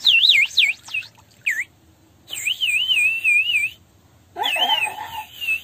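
Water-filled bird whistle blown in warbling trills, a high wavering chirp just like a sparrow. It comes in three bursts with short breaks between, plus a brief falling chirp about one and a half seconds in.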